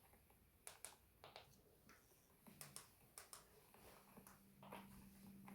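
Near silence: room tone with a few faint, scattered clicks and a faint steady hum in the second half.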